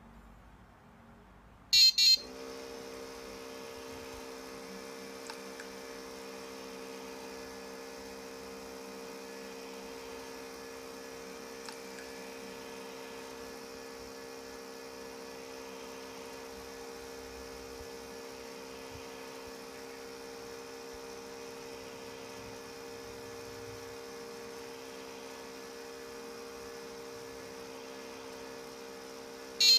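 A double beep from an electronic buzzer, then a small electric motor running with a steady hum for nearly half a minute, ending with another double beep.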